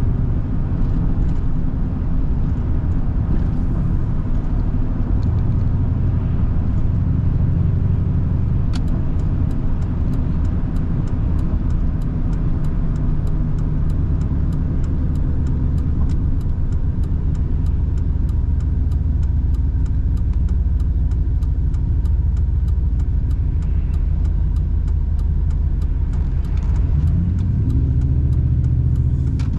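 Truck being driven, heard from inside: a steady engine and road rumble whose pitch shifts a little as it slows. From about nine seconds in there is a light, regular ticking about twice a second.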